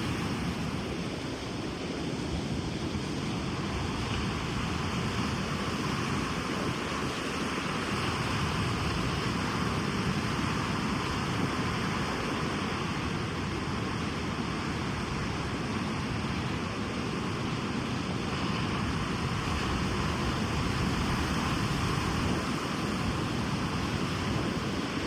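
Ocean surf washing on a beach: a steady rush of waves, rising and falling only slightly, with no single loud break standing out.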